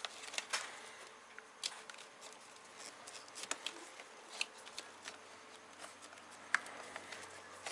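Scattered small clicks and light rustling of a car's wiring loom and plastic relay clips being handled and pushed into place, about a dozen sharp ticks spread irregularly over a faint steady hum.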